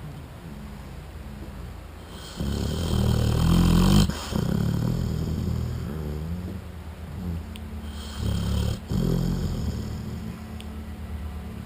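American Bulldog snoring in its sleep with low, rasping snores. The loudest snore comes a couple of seconds in, another comes about two thirds of the way through, and softer snoring breaths run between them.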